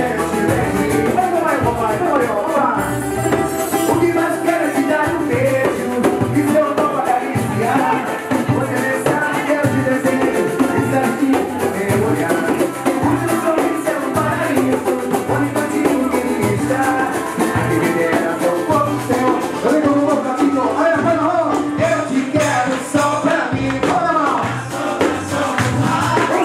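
Live band playing with singing: a strummed cavaquinho, a hand drum keeping an even beat, and the steady rasp of a scraped metal reco-reco.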